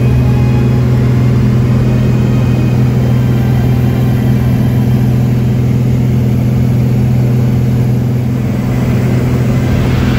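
Single-engine propeller aircraft's piston engine and propeller droning steadily in flight, heard from inside the cockpit as a loud, even low hum with a second steady tone above it.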